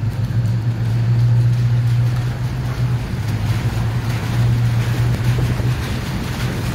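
A vehicle driving slowly through a concrete tunnel, its engine giving a steady low drone while the tyres run through a thin sheet of water on the tunnel floor.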